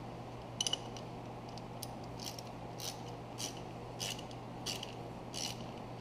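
A ratchet turning a 3/8-16 bottoming tap into a rusty exhaust-manifold bolt hole in a 351 Windsor cylinder head to clean the threads. Its pawl clicks in short bursts about every two-thirds of a second from about two seconds in, over a low steady hum.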